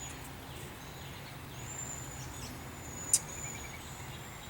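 Quiet outdoor background with thin, high-pitched bird chirps and whistles, and a single sharp click about three seconds in.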